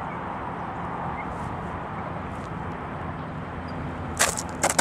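A steady rushing hiss, then from about four seconds in a rapid run of sharp scrapes and knocks as the foam Multiplex Funjet RC jet belly-lands and skids across hard dirt.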